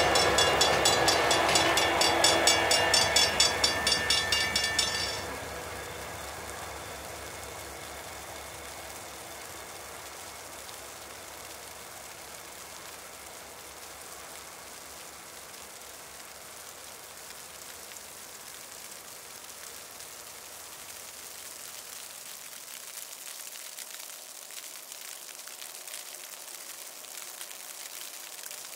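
Freight train locomotives passing a grade crossing while the crossing bell rings rapidly. The bell cuts off about five seconds in, and the train's rumble fades away to a faint steady hiss.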